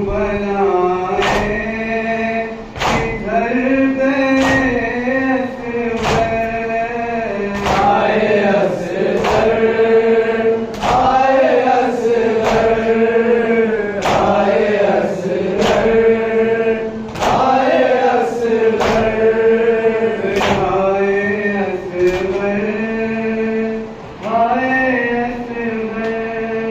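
Male voices chanting a Shia noha lament, a mourning chant for Muharram, with a sharp slap about every one and a half seconds from hands striking the chest in matam.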